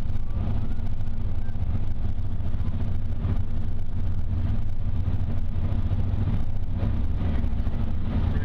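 Steady low rumble of a car driving at speed, with road and engine noise, beside a long freight train of loaded coal hopper cars rolling past.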